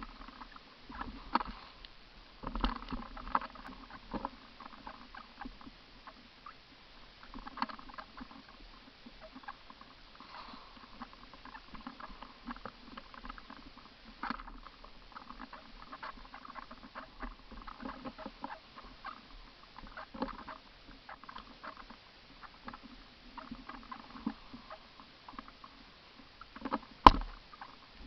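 Irregular light rustling and clicking throughout, with one loud sharp knock near the end.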